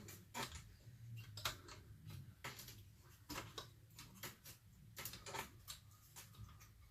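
Faint, irregular light clicks and taps of hand tools and small metal chainsaw parts being handled and fitted, a dozen or so scattered through.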